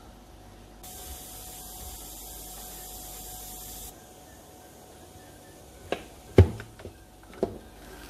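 Steam hissing from a closed VonShef electric waffle maker as the batter cooks, for about three seconds. Then a few clicks and one heavier knock as the hinged lid is opened on the cooked waffles.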